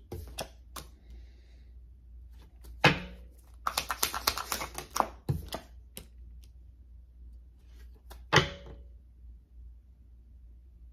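A deck of tarot cards being shuffled and handled: scattered card snaps, a quick flurry of riffling clicks about four seconds in, and two louder sharp slaps, one near the start of the flurry and one about eight seconds in.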